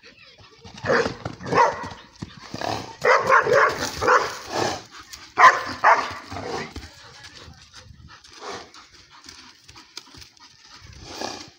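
Small dog barking in bursts while going at a horse: a couple of barks about a second in, a quick run of barks around three to five seconds, more a little after, then quieter until one last bark near the end.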